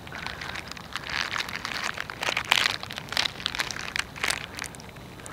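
Irregular rustling and crackling handling noise: the phone's microphone being rubbed and covered while the lens is blocked.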